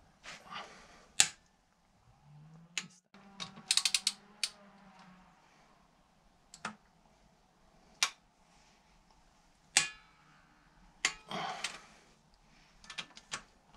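A socket wrench clicking and clinking on the cylinder head bolts as they are angle-tightened a further 90 degrees. There are single sharp metal clicks every second or two, a quick run of ratchet clicks about four seconds in, and a short scrape near the end.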